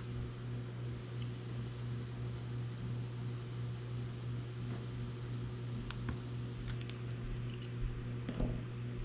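A steady low hum in the room, with a few light clicks and taps of small metal screws, standoffs and a hex driver being handled, mostly in the second half.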